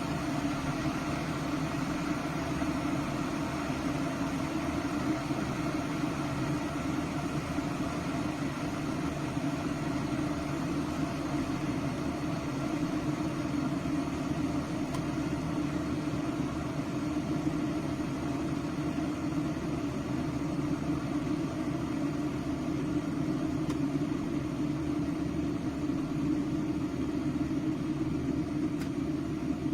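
Electric kettle heating water toward its set temperature, short of the boil: a steady hiss and rumble that holds unchanged throughout.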